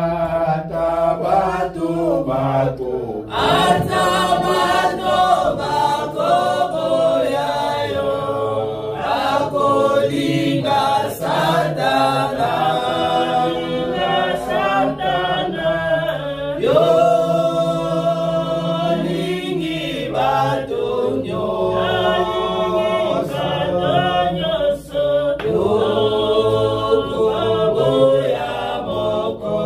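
Church congregation singing a worship song together.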